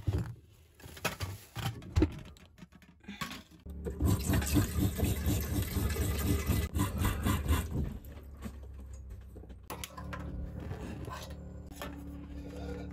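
Water running from a kitchen faucet into an aluminium stovetop coffee percolator for about four seconds, over a fast low pulsing, after a few knocks and clinks of the pot being handled. A steadier low hum follows once the water stops.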